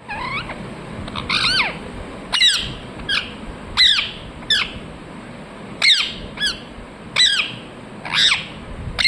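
Ringneck parrot (rose-ringed parakeet) giving repeated short, shrill calls, each falling sharply in pitch, about a dozen of them at uneven intervals, some in quick pairs.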